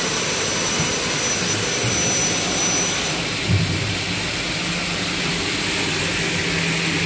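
The two 6 kW motors of a double-head aluminium cutting saw running with the blades spinning free, a steady machine noise with a thin high whine. About three seconds in the whine stops and there is a brief knock, after which a lower hum carries on.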